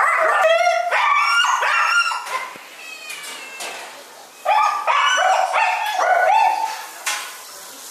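Dogs barking in quick runs of short, high calls, pausing for about two seconds midway before starting up again.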